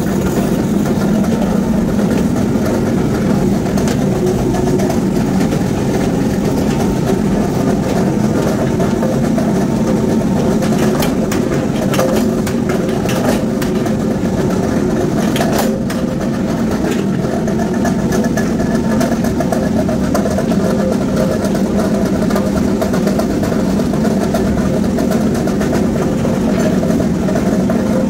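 Flywheel-driven mechanical power presses running, a loud steady machine hum, with a few sharp knocks about halfway through.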